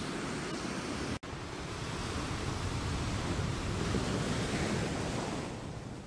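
Ocean surf washing onto the beach, with wind buffeting the microphone; the sound drops out for an instant about a second in.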